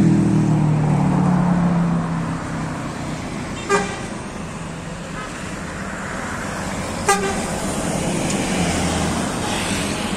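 Street traffic passing: a vehicle's engine note dropping in pitch and fading over the first two seconds, then steady engine and tyre noise as a coach bus approaches, with two short horn toots about four and seven seconds in.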